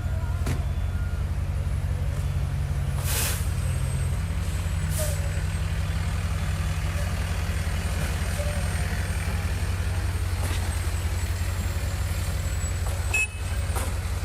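Steady low rumble of an idling vehicle engine, with a short hiss about three seconds in and a fainter one about five seconds in.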